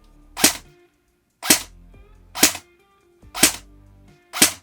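Lancer Tactical CQB airsoft electric gun firing single shots, five sharp cracks about a second apart.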